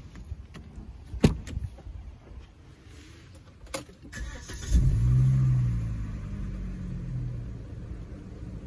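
A car door clunks about a second in. A few seconds later the Volvo V70's five-cylinder 20-valve engine is started with the key: a short crank, then it catches, flares up briefly and settles to a steady idle.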